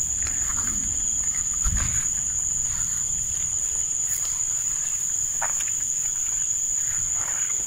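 Field insects such as crickets shrilling in one steady, high, unbroken tone. Soft thumps and rustles of footsteps through rice grass come and go beneath it.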